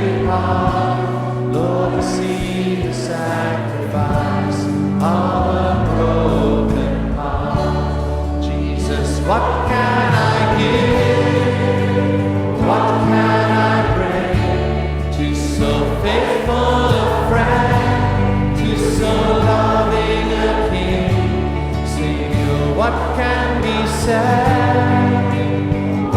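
Christian worship music: sustained chords with choir-like singing and no clear words, leading into a hymn.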